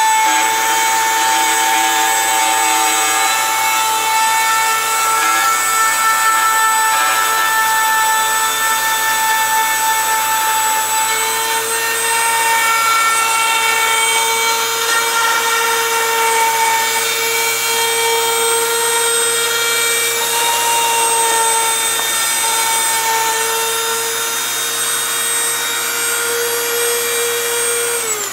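Small high-speed router running steadily as it cuts a circular purfling channel about 60 thou deep around a guitar soundboard rosette, a steady high whine. At the very end it is switched off and winds down, its pitch falling.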